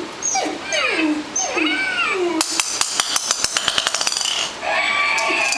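Babble Ball talking pet toy playing its sound clips: three pitched calls, each sliding steeply down in pitch. About two and a half seconds in comes a rapid run of about a dozen sharp clicks, then a higher, held call.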